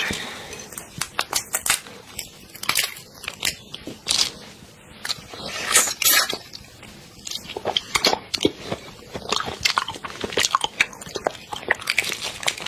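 Close-miked eating sounds: shells of large red prawns cracking and snapping as they are peeled by hand, with wet chewing of the prawn meat. Many short, sharp crackles.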